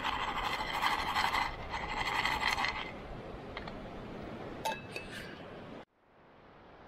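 Aluminium camping pot and lid scraping and clinking as they are handled with a wire pot gripper on a canister gas stove, followed by a few light clinks about five seconds in. About six seconds in it cuts abruptly to the soft, steady rush of a shallow stream.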